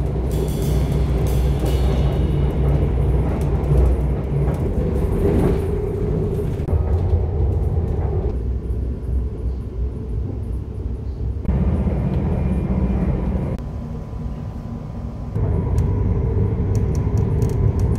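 Steady low rumble of a passenger train in motion, heard from inside the carriage. The level steps down and back up a few times.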